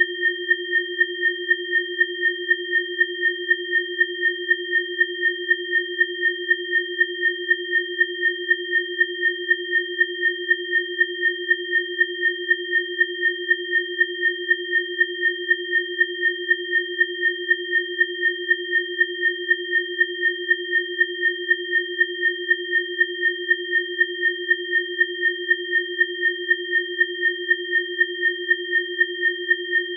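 Synthesized sine tones of a neowake biofrequency session: three steady pitches held together, one low and two high, pulsing evenly about twice a second.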